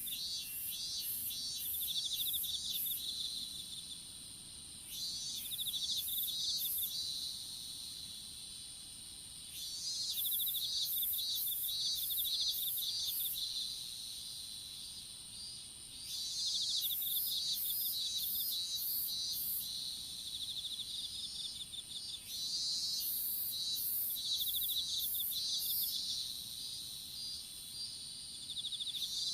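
Insects calling in a field: one steady high-pitched trill throughout, overlaid by bouts of fast pulsed chirping a few seconds long that stop and start again every few seconds.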